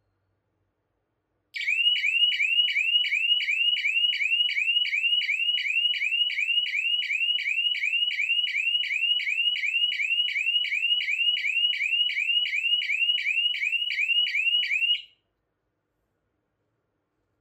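Small electronic horn siren of a DIY rain-sensor alarm sounding: a fast, evenly repeating rising chirp, nearly three chirps a second. It starts about a second and a half in and cuts off abruptly after about thirteen seconds.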